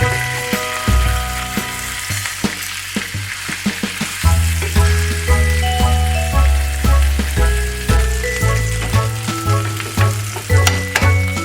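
Food frying in butter in a pan, a steady sizzle, under background music with a bass line that grows stronger about four seconds in.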